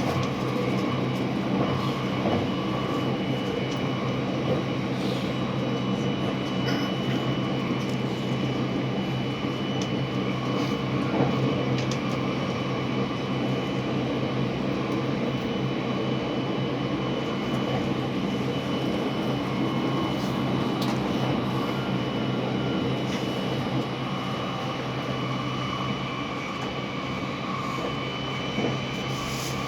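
Inside the passenger cabin of a JR West 683 series limited-express electric train running steadily: an even rumble of running noise with a steady hum underneath.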